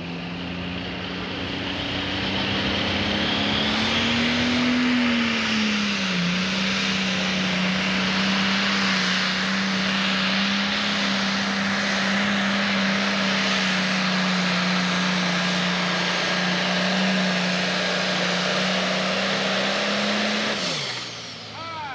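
Pro Stock pulling tractor's turbocharged diesel engine held at full throttle, pulling the weight-transfer sled at a steady high pitch with a brief rise about four seconds in. Near the end the revs drop steeply as the driver lets off at the end of the pull.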